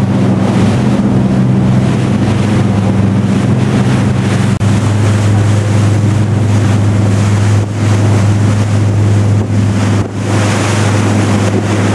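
A ferry's engines running with a steady low hum, mixed with wind buffeting the microphone and the rush of water from the boat's wake.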